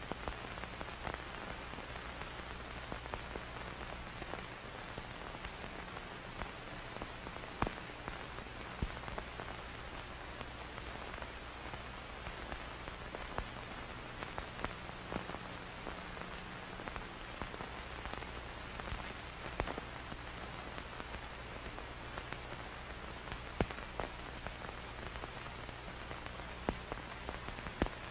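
Steady hiss with a low hum and scattered crackles and pops: the background noise of an old film soundtrack, with no music or speech.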